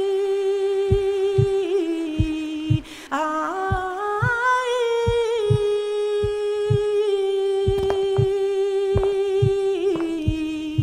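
A flamenco singer holds a long wordless note. The note bends down, then slides up about three seconds in and settles back to the same pitch. Under it runs a low, heartbeat-like thump about twice a second.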